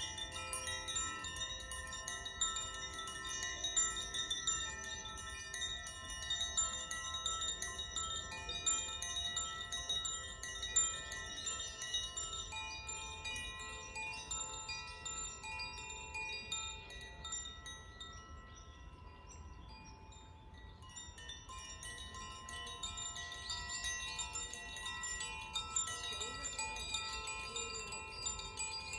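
Koshi and Zaphir tuned wind chimes, tuned to the fire and wind elements, played by hand: many overlapping steady, shimmering rings. They thin to a lull a little past the middle, then swell again.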